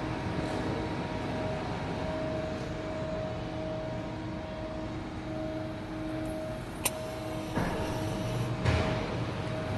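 Steady background hum with a faint held tone. A sharp click comes a little before seven seconds in. From about three-quarters of the way through, a fumigation smoke canister starts to hiss as it begins releasing smoke.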